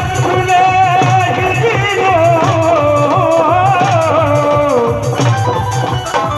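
Live band music: a wavering melody line winds downward over a steady low drum beat.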